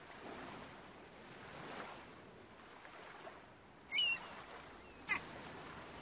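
Seaside ambience: soft surf washing in and out, with two brief bird calls about four and five seconds in, the first being the loudest sound.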